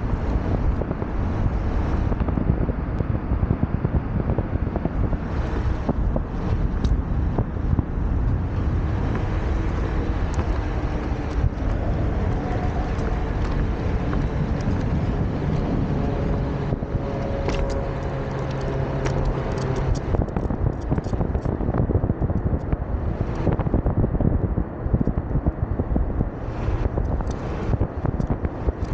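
Wind buffeting the microphone of a camera riding low on a moving Onewheel Pint, over the steady rumble of its wheel rolling on pavement, with scattered small ticks from the road surface.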